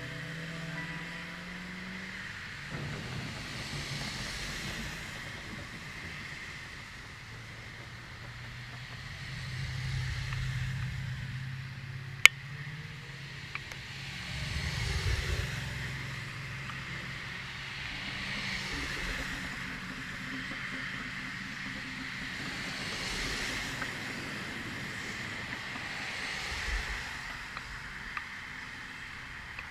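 Car engines humming, with road and engine noise swelling and fading several times as cars pass by. A single sharp click comes about twelve seconds in.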